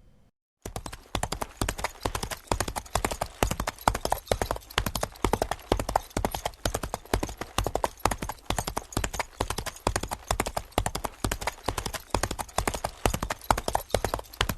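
Horse galloping: a fast, continuous run of loud, sharp hoofbeats in the repeating three-beat gallop pattern, starting about half a second in.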